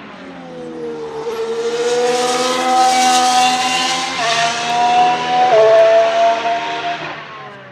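The McLaren MCL34's Renault E-Tech 19 1.6-litre turbo V6 hybrid power unit, on track. Its pitch drops for the first second or so, then rises under acceleration, with two upshifts about four and five and a half seconds in. It grows louder as the car approaches and fades near the end.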